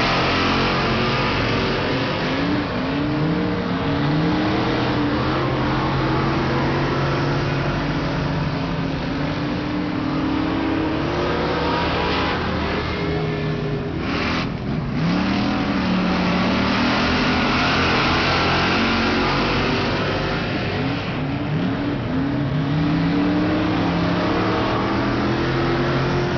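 Street stock race car engines running hard on a dirt oval, their pitch repeatedly rising and falling as the drivers get on and off the throttle.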